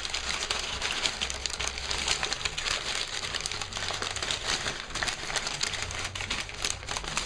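Packaging being unwrapped by hand: a continuous, irregular crinkling and crackling with many small clicks.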